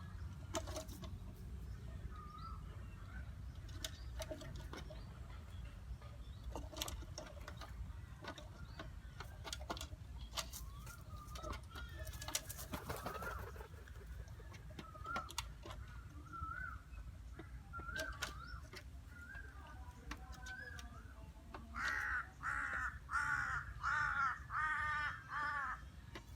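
Crow cawing, a run of about six loud, harsh caws near the end, after short, soft bird calls and scattered clicks over a low rumble.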